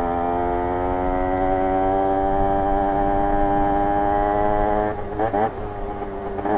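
Rieju RS2 50's two-stroke 50cc engine with a custom exhaust, its pitch climbing slowly as the bike gathers speed. About five seconds in the throttle is rolled off, with a brief wavering blip, before it pulls steadily again near the end.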